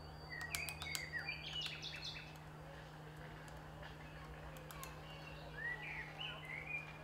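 Small birds chirping and twittering in two spells, the first couple of seconds and again near the end, with a few sharp clicks and a steady low hum underneath.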